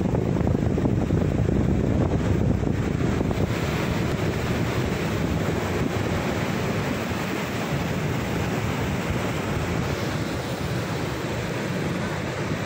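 Rough sea surf breaking and washing over a rocky shore in a steady roar, with wind buffeting the microphone.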